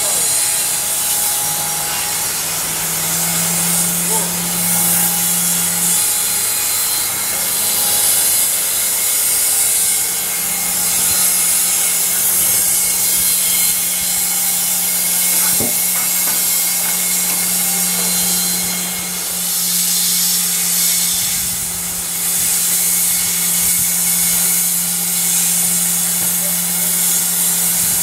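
Band sawmill sawing a pine log: the band blade runs through the wood with a steady high hiss over a steady low hum.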